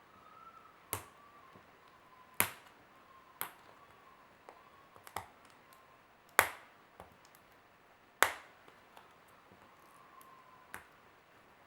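Sharp, separate clicks and cracks a second or more apart, the loudest about 2.5, 6.5 and 8 seconds in, from a chocolate surprise egg and its plastic toy capsule being handled and opened.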